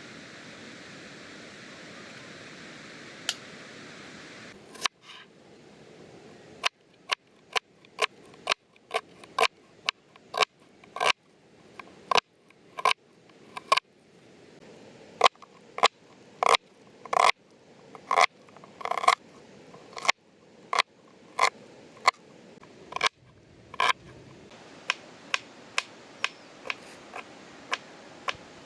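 A steady rushing noise, then, about five seconds in, a long run of sharp clicks or knocks, roughly two a second and varying in strength. Near the end the rushing returns with fainter clicks over it.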